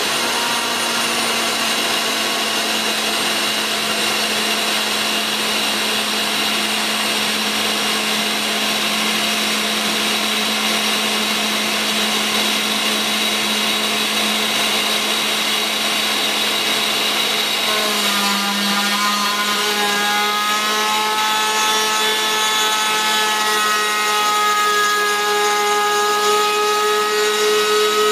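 CNC router spindle running at about 12,000 rpm with a steady whine while its 8 mm two-flute cutter profile-cuts a pine board, chips hissing off the cut. About two-thirds of the way through, a set of higher whining tones joins in, wavering slightly in pitch.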